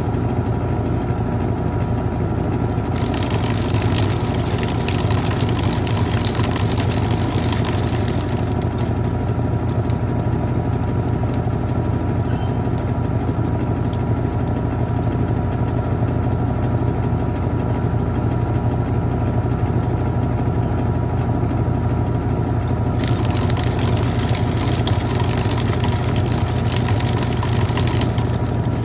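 Brastemp Clean washing machine running with a steady low motor hum. A hissing rush rises over it about three seconds in, lasting some five seconds, and again for about five seconds near the end.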